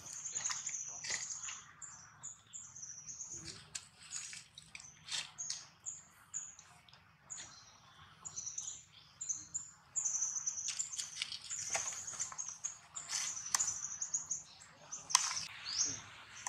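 Small birds chirping over and over in short, high notes, with scattered sharp clicks and one louder snap about fifteen seconds in.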